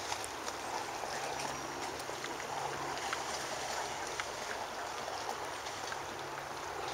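Steady rush of river water flowing through rippled, broken stretches, an even hiss with a few faint scattered ticks.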